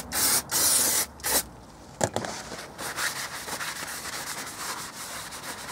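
Aerosol brake cleaner sprayed onto a new brake disc in three short hisses, then a knock and a cloth rubbing over the disc's surface in quick strokes, wiping off the anti-rust coating it was shipped in.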